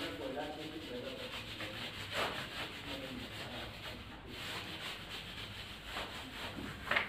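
Whiteboard duster rubbing marker writing off a whiteboard in repeated back-and-forth scrubbing strokes.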